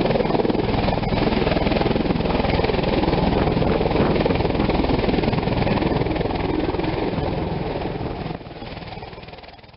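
V-22 Osprey tiltrotor hovering low in helicopter mode: a loud, steady thrum of its two big rotors over the whine of its turboshaft engines. The sound fades out over the last two seconds.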